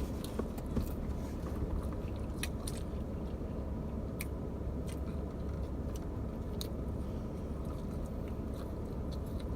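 Close-miked chewing and biting of pizza, soft and wet, with a few short sharp clicks, over a steady low hum.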